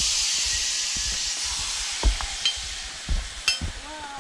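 Footsteps crunching on a gravel trail, about two steps a second, under a steady high hiss that slowly fades. A few sharp clicks come in from about two seconds in.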